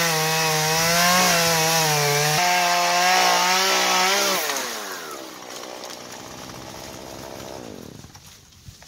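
Two-stroke chainsaw at full throttle cutting into the trunk of a standing tree, its pitch wavering and stepping as the chain bites. About four and a half seconds in the throttle is released and the saw drops to idle, which fades near the end.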